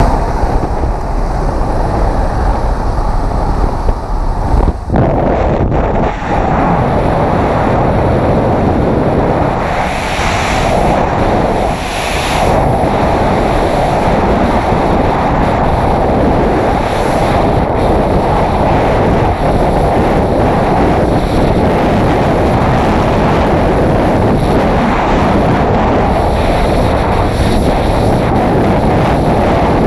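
Strong wind rushing over a helmet camera's microphone in skydiving freefall. The first few seconds are aircraft noise at the open jump door, and the exit about five seconds in changes it to the steady freefall wind.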